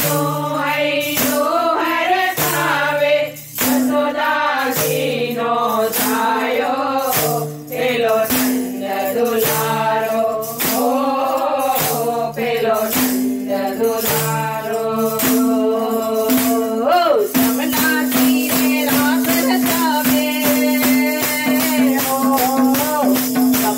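Women singing a Gujarati devotional song together, with wooden kartal clappers and small hand cymbals striking the beat. About 17 s in, the singing gives way to an instrumental passage of fast clapper strokes over one held note.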